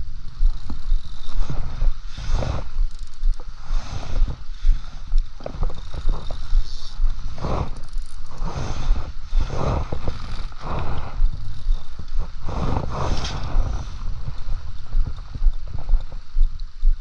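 Wind buffeting a body-worn camera microphone, with jacket fabric rustling and scraping as the angler cranks a spinning reel to retrieve the line.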